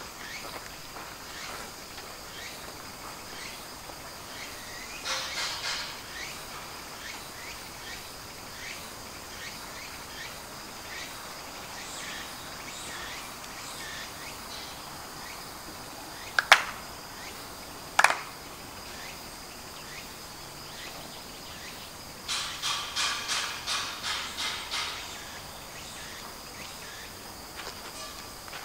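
Two sharp hand claps about a second and a half apart, the ritual kashiwade clapping of Shinto worship, over a steady chirring of insects. Two spells of quick rustling come and go, one early and a longer one later.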